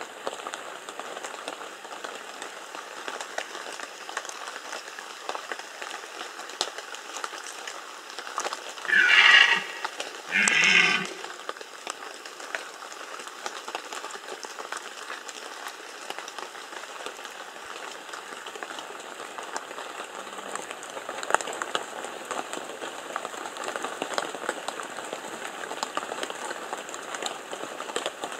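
Red deer stag giving two short rutting calls, about a second and a half apart, near the middle, over a steady background hiss.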